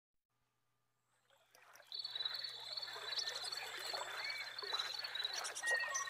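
Nature soundscape fading in about a second in: a chorus of frogs croaking, with a steady high trill and scattered bird chirps.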